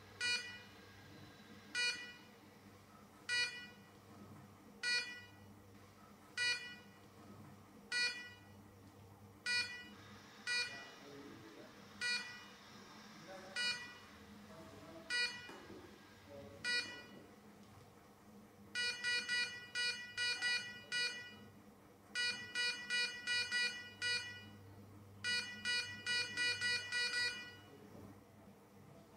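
Hospital heart monitor beeping with the heartbeat, one short beep about every second and a half. About two-thirds of the way in it switches to quick runs of rapid beeps with short gaps between them.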